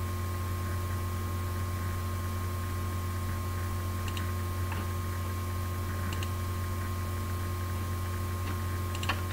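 Steady low electrical hum of the recording background, with a few faint, scattered clicks and a slightly sharper click near the end.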